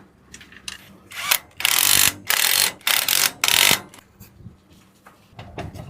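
Tool work on an electric tricycle's rear axle as the half shaft is fitted: five or so short ratcheting bursts between about one and four seconds in, with small metal clicks around them.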